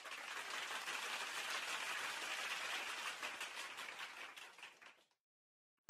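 Applause: many quick hand claps blending into a dense patter, which fades out about five seconds in.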